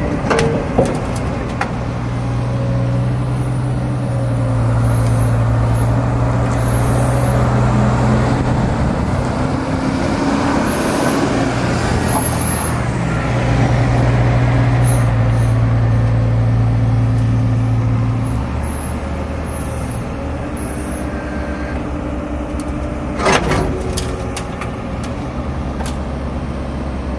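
Cat 305.5 mini excavator's diesel engine running steadily under hydraulic load, working harder through the middle and easing off about two-thirds of the way through. A couple of sharp knocks sound over it, one near the start and one near the end.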